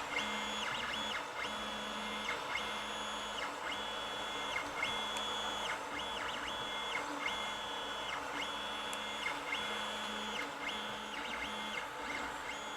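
Creality Ender 5 3D printer's stepper motors whining in short strokes as the print head moves while laying down a layer. Each move lasts about half a second to a second, with brief pauses and a few quick stuttering moves between them.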